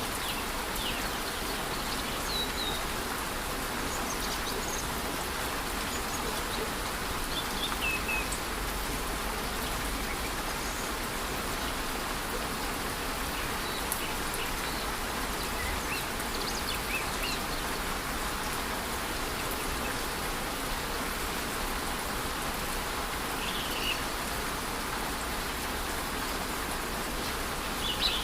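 Steady rushing of a rainforest waterfall under light rain, with scattered short bird chirps now and then, a few near the start, about eight seconds in, and near the end.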